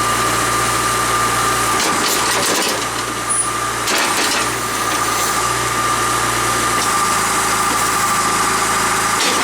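John Deere 310E backhoe's 4.5-litre diesel engine running steadily, with a steady high-pitched whine over the engine's low hum.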